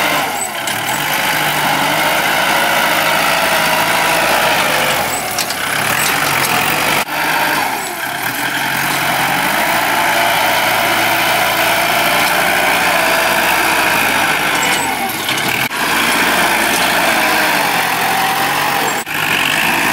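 Kubota L4708 tractor's diesel engine running under load as its front blade pushes gravel fill, its pitch dipping and recovering as the load changes; the engine sounds smooth. The sound breaks off for an instant about three times.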